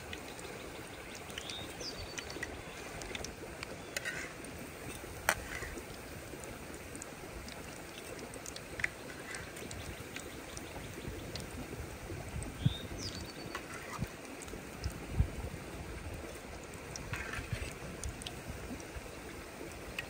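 A steady water-like hiss, with a short bird call twice and a few sharp knocks.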